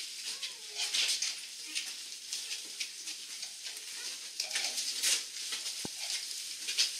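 Rustling and shuffling of several people moving about on a stone floor, with faint murmurs and one short knock about six seconds in.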